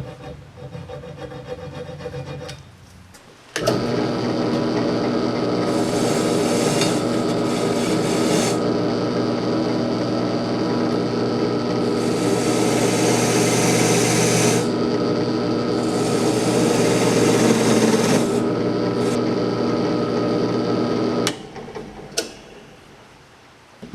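An electric power tool's motor runs steadily from about three and a half seconds in, with three stretches of harsher high hissing as it cuts or rubs against the workpiece, and shuts off a few seconds before the end.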